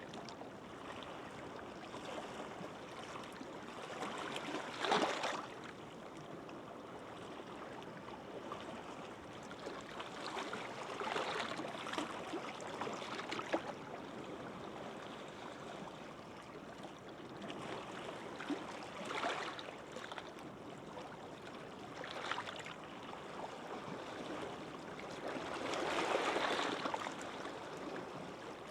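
Small, gentle sea waves washing onto a beach: a steady wash of surf that swells louder every few seconds as each wave breaks.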